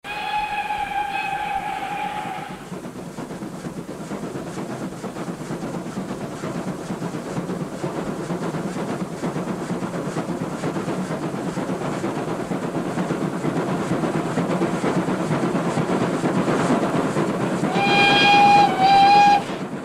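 Steam locomotive whistle sounding steadily for about two seconds, then the train's running noise, growing louder, and two short whistle blasts near the end.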